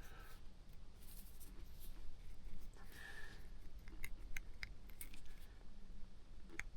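Faint handling sounds of small plastic parts: brief scrapes, then several sharp little clicks in the second half, as a bulb socket with a T10 LED bulb is worked into a car's interior light housing.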